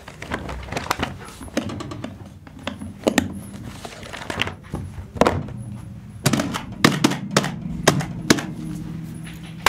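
Office objects being handled and struck: a string of irregular sharp clicks, taps and knocks, coming thicker and louder in the second half.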